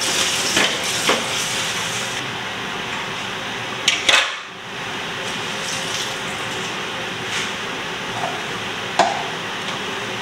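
A cooking utensil clinks against a pot a handful of times, the loudest strikes about four seconds in and near the end, over a steady hiss.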